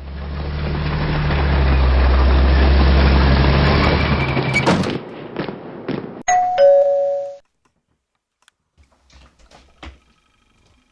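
A loud rushing noise with a low hum swells and then stops about five seconds in. About a second later a two-tone ding-dong doorbell chime sounds once, a higher note followed by a lower one, then faint small knocks.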